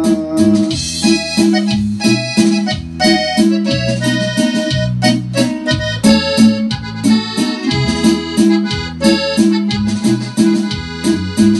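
Korg Pa600 arranger keyboard playing an instrumental break of a norteño-style corrido: an accordion-voice melody over a bouncing bass line and a steady drum beat.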